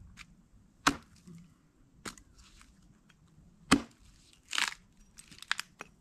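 Wood being chopped on a stump: three sharp chops a second or more apart, then a short splitting crackle and a few lighter knocks near the end.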